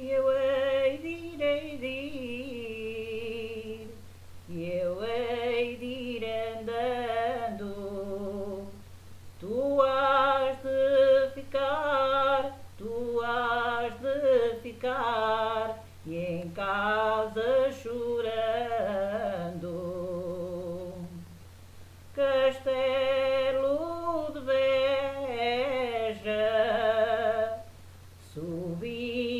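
A woman singing an Alentejo folk song (cantiga alentejana) unaccompanied, in long phrases with wavering held notes and short breaks between them. A steady low hum runs underneath.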